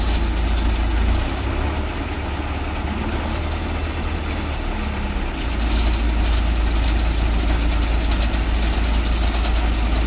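Heavy diesel engine of an asphalt paver running steadily with a deep low hum, growing louder and harsher about halfway through as the engine takes on more throttle.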